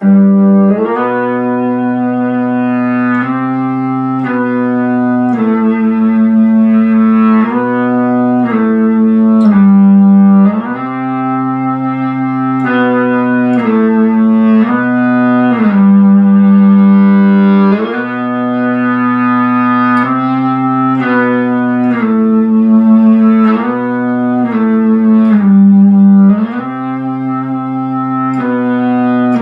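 A cello playing long held notes over a steady low note, with the melody changing every second or so. The notes hold their loudness and swell rather than fading away.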